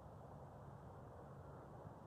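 Near silence: a faint, steady background hum and hiss with no distinct sounds.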